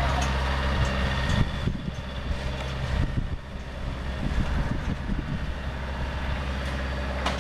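Tractor engine running steadily, with a few knocks.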